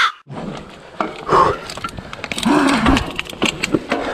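YT mountain bike running down a rough dirt trail: chain and frame rattling with irregular sharp clicks over the bumps. Two short, louder bursts from the rider's voice come about a second in and again near the middle.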